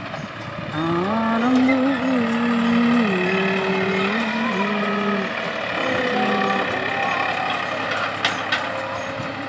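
Tractor diesel engine running under load as it pulls a tine cultivator through ploughed soil, its pitch rising and dropping in steps.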